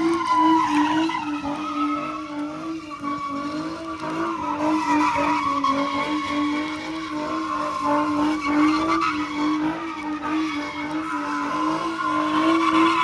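Car tires screeching in one long, unbroken skid, with a steady, slightly wavering pitch and the engine held at high revs.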